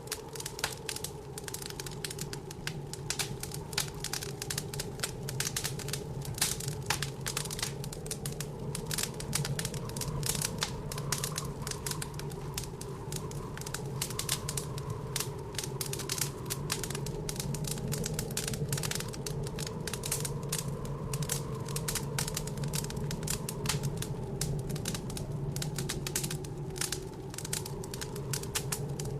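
Wood fire crackling in a fireplace, a dense, irregular run of sharp pops and snaps, over a steady low drone from the blizzard wind.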